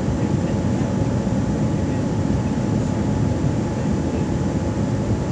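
Steady cabin noise inside a Boeing 787-9 airliner in flight: an even, low rumble of engines and airflow, with a faint steady tone over it.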